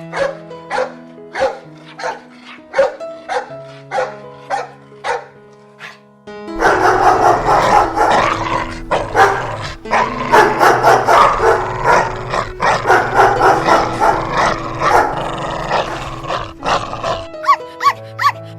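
Dogs barking over background music. About six seconds in a loud, dense stretch of rapid, overlapping barking begins and lasts about ten seconds before the music returns.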